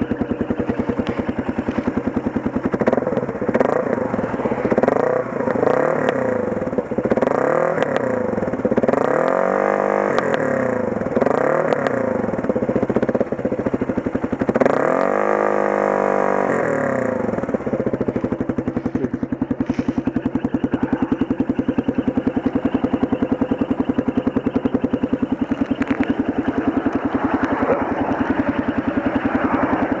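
Kawasaki motorcycle engine idling, blipped up and down repeatedly for about the first half, each rev rising and falling back, then settling to a steady idle.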